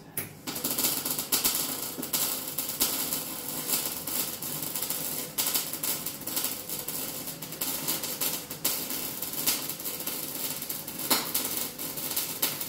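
Welding on a car's steel body panels: the welding arc gives a dense, steady crackle.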